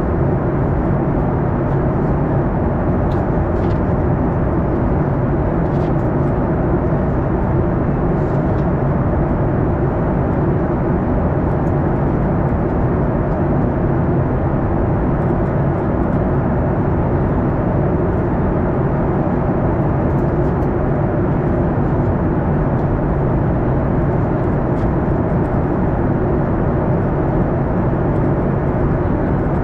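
Steady cabin noise inside a Boeing 737-800: an even, unbroken roar of its CFM56 jet engines with a low hum underneath, holding constant.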